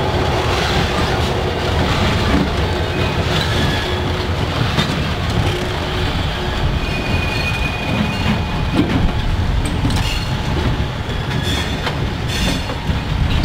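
A string of vintage diesel locomotives rolling slowly past at walking pace: a steady low rumble, with the wheels clicking over rail joints and a few brief, faint wheel squeals.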